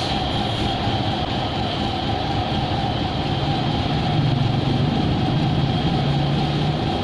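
Concrete mixer truck's diesel engine and turning drum running steadily, with a constant whine over the drone while it discharges concrete. About halfway through, a deeper engine note swells as motorbikes pass close by, then eases near the end.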